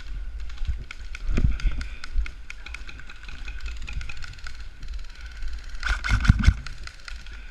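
Airsoft guns firing: rapid sharp clicks with a faint steady whine, and a louder burst of clicks and thumps about six seconds in.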